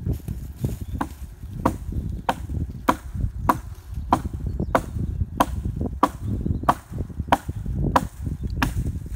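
A hand axe chopping wood, struck at a steady pace of about one and a half blows a second, each blow a sharp knock with a short ring. A low rumbling noise runs underneath.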